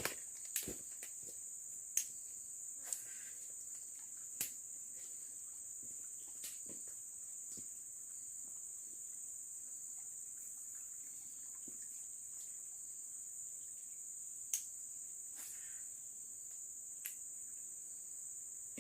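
Steady high-pitched drone of insects in the forest, with a few short, sharp clicks and knocks scattered through it, the loudest about two seconds in and near two-thirds of the way through.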